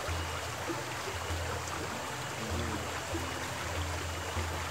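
Shallow mountain stream running steadily over stones, an even rush of water.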